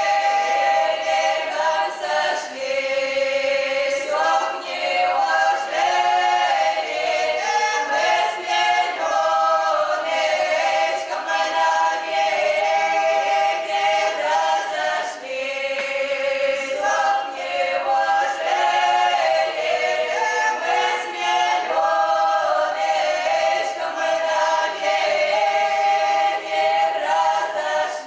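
A women's folk ensemble singing a Russian folk song a cappella, several voices in harmony holding long sung notes, with brief pauses for breath.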